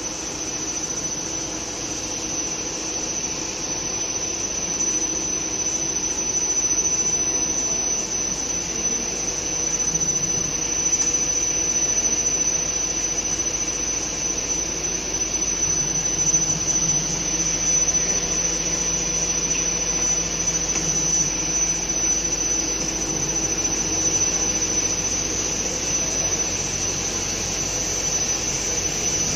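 Dual extruder line running steadily: a constant machine drone with an unbroken high-pitched whine over it.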